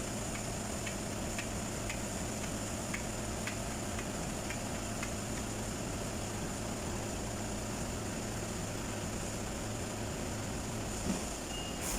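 Steady mechanical hum with a faint high whine. Light irregular ticks come in the first few seconds, and a single knock comes near the end.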